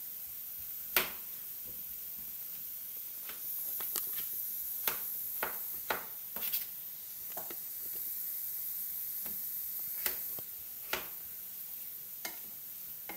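Chopped onions frying in a pan with a steady sizzle, and irregular sharp knocks of a knife cutting potato against a plastic cutting board, the loudest about a second in.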